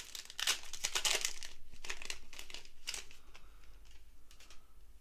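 A trading-card pack's foil wrapper being torn open and crinkled by hand, a dense crackling for about three seconds that then dies down to faint rustles.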